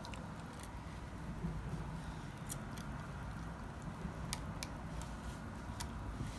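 Small plastic Strandbeest kit parts clicking and tapping as the feet are pressed and rotated onto the legs: a handful of sharp clicks spread through, over a faint steady low hum.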